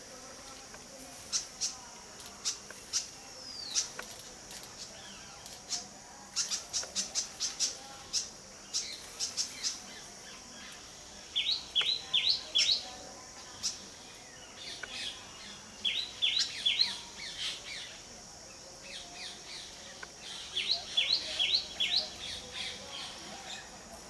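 Small birds calling with sharp, quick chip notes, then three bursts of rapid chirps in short series, over a steady high-pitched insect drone.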